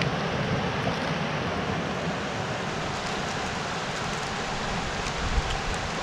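Steady rush of a shallow creek flowing over rocks and boulders, with a brief low thump about five seconds in.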